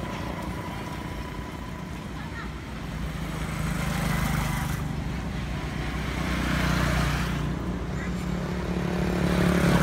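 Road traffic: motor vehicles passing on the road, their engine and tyre noise swelling and fading about three times over a steady low engine hum.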